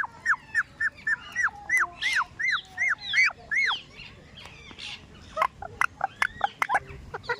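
Indian ringneck parakeet calling: a rapid run of short, arched, shrill calls, about three a second, breaking off about three and a half seconds in. A second run of calls starts near the end.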